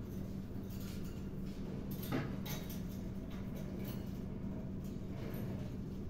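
Faint scratching and clicking from a grey parrot moving and preening on its perch in a metal cage, with one louder scrape about two seconds in, over a steady low hum.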